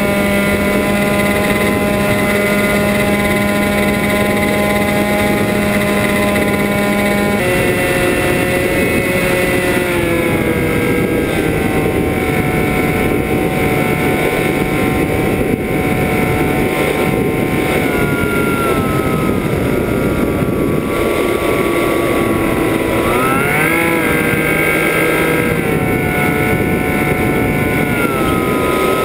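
FPV drone's electric motors and propellers whining steadily, heard from the onboard camera. The pitch drops about seven seconds in, then glides up and down several times as the throttle changes.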